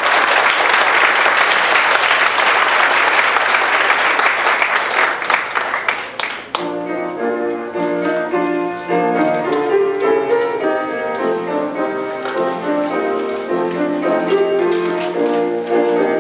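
Audience applauding for about six seconds. Then keyboard music begins, a melody of steady notes.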